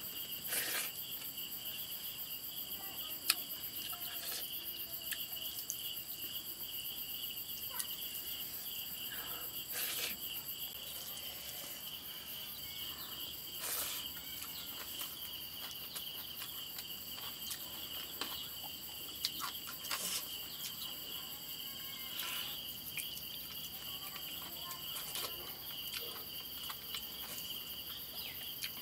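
Steady high-pitched drone of insects, holding at several pitches at once. It is broken by scattered short smacks and clicks of a person eating: chewing meat and sucking it off a bone.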